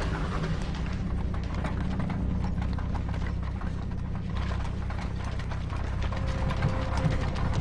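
Horse-drawn carriage on the move: hooves clip-clopping with the wheels and woodwork rattling and creaking, a little louder near the end.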